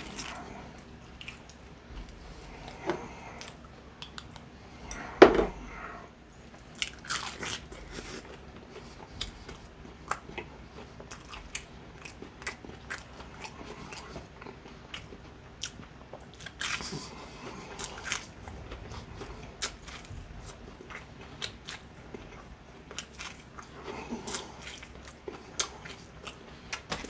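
Close-miked eating of crispy fried chicken: irregular crunching bites into the breaded crust and chewing, with one much louder sharp sound about five seconds in.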